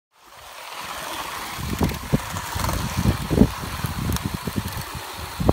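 Wind buffeting an outdoor microphone in irregular low rumbling gusts over a steady hiss, fading in over the first second, with a few faint clicks.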